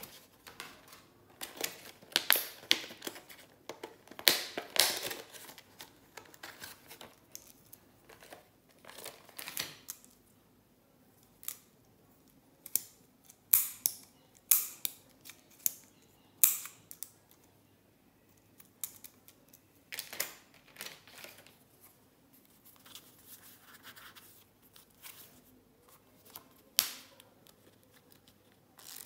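Plastic packaging and card crinkling and rustling as they are handled, then a string of separate sharp plastic clicks about a second apart, from the colour sliders of a multicolour retractable ballpoint pen being pressed.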